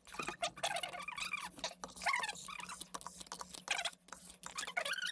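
Hand-pump pressure sprayer squirting lacquer thinner into the oil passages of an aluminium diesel cylinder head in a plastic tub: irregular short spurts and spatter, with brief squeaks.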